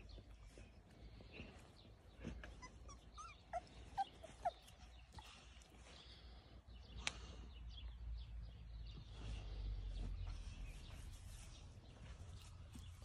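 A few faint, short, high squeaks from newborn cane corso puppies, clustered about four seconds in, over a low rumble that swells in the second half.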